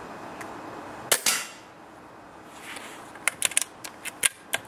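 Brocock Compatto PCP air rifle firing one sharp shot about a second in, followed a couple of seconds later by a quick run of metallic clicks as the rifle's cocking action is worked to load the next pellet.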